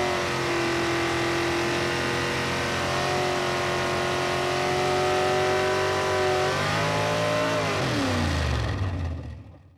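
1956 Chevy 210 drag car's engine held at high, steady revs during a tire-smoking burnout. About seven seconds in the pitch rises briefly, then drops as it comes off the throttle, and the sound fades out near the end.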